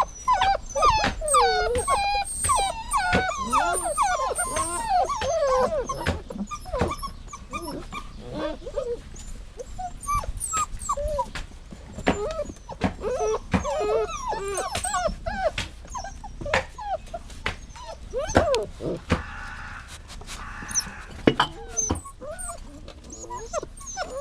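Dog whining and whimpering: high, wavering cries that rise and fall in pitch, coming thick and overlapping for the first several seconds and then in shorter, sparser bouts.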